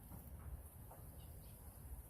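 Near silence: faint low background hum, with only a couple of faint brief sounds.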